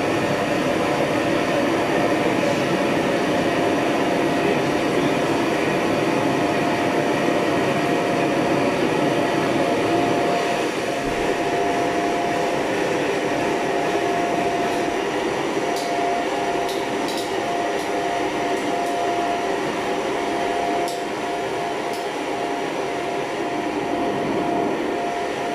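Gas wok burners of a stainless-steel Chinese double-burner wok range burning with a steady rushing noise and a thin steady tone over it. The noise steps down slightly about ten seconds in and again about twenty seconds in.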